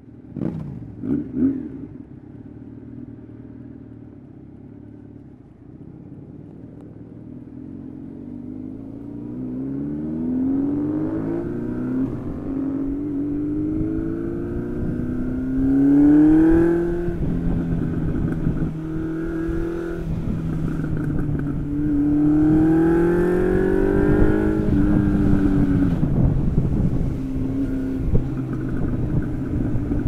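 1992 Honda CB750 Nighthawk's air-cooled inline-four, run through the stock exhaust with the mufflers removed. About a second in there are two short throttle blips, then a low idle. From about eight seconds the engine pitch climbs steadily, drops at a gear change around halfway, climbs again, drops at a second shift, and then holds steady at cruising speed.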